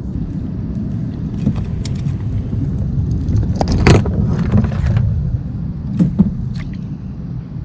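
Knocks and rattles as a freshly caught bass is unhooked over a landing net on a kayak. The loudest is a sharp knock about four seconds in, and two more come a couple of seconds later, over a steady low rumble.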